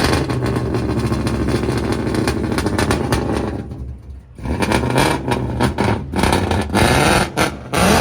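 Loud RTR Ford Mustang exhaust running steadily for about three and a half seconds, then dropping away briefly. A loud pulsing sound then begins, swelling and falling about every half second.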